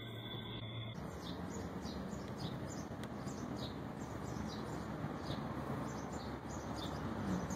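A held musical tone cuts off about a second in, giving way to outdoor night ambience: a steady wash of distant noise with short, high chirps repeating about three times a second.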